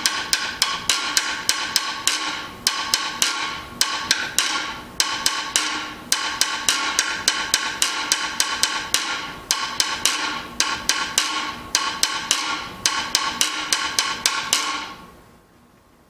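Guiro played with a metal triangle beater: a steady run of light taps, with longer scrapes on the accented notes at intervals. The playing stops about 15 seconds in.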